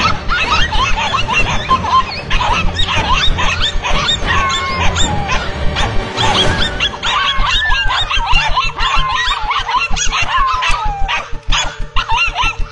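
Dogs barking and yelping in a scuffle, with many short, high squeals. Background music runs underneath.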